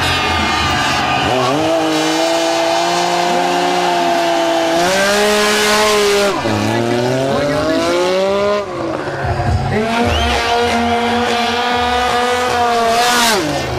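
Sport motorcycle engine revved hard and held high during a rear-tyre burnout, the spinning tyre hissing on the tarmac. The revs hold, drop and climb again three times.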